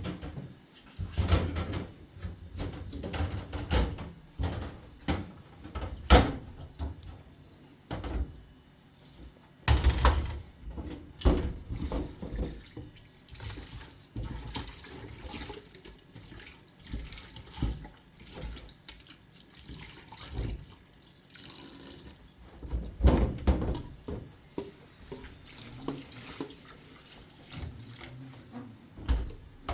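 Water splashing and pouring, with irregular knocks and clunks of objects being handled.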